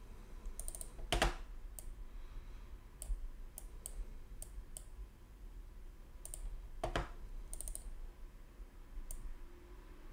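Computer mouse and keyboard clicks at a desk: scattered sharp clicks, with two louder knocks about a second in and about seven seconds in.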